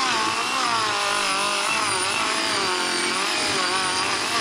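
Team Associated DR10 RC drag car doing a burnout, held in place by hand: its electric motor and drivetrain whine steadily, the pitch wavering up and down with the throttle, as the rear tires spin on cardboard to heat them before a drag launch.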